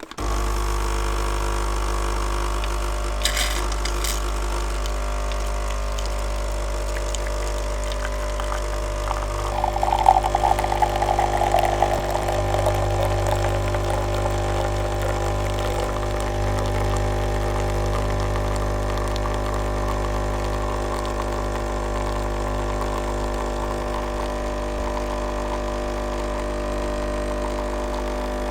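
Nescafé Dolce Gusto capsule coffee machine brewing, its pump running with a steady hum. There are two sharp clicks a few seconds in, and a louder spluttering for a couple of seconds about ten seconds in before the steady hum carries on.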